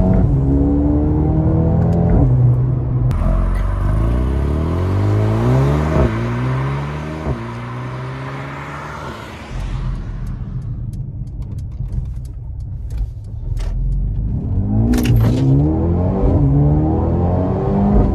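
Mercedes-AMG A35's turbocharged four-cylinder engine accelerating hard through the gears, its pitch climbing and then dropping at each of several upshifts, heard from inside the cabin. It eases off and runs lower for a few seconds past the middle, then climbs again near the end.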